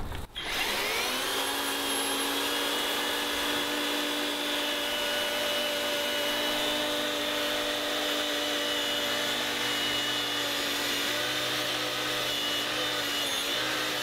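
EGO 56V multi-tool power head driving its rotating bristle brush at its second speed setting. The electric motor spins up about half a second in, then runs with a steady whine while the spinning bristles sweep dirt and dust off a concrete driveway.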